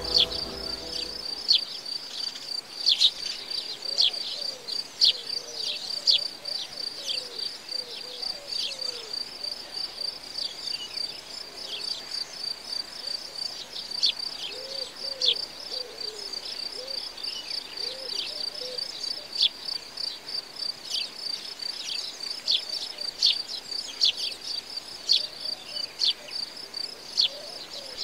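Outdoor insect ambience: a steady, high, pulsing trill throughout, with frequent short sharp chirps over it.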